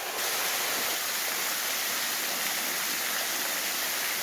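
Waterfall's falling water making a steady rushing hiss, growing a little louder just after the start.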